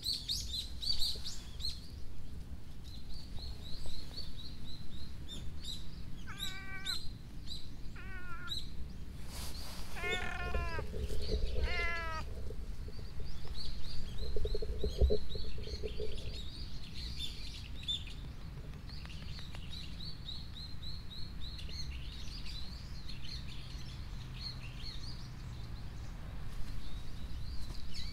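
Tabby cat meowing four times a few seconds apart in the middle, the later calls longer and falling in pitch, over small birds chirping steadily throughout.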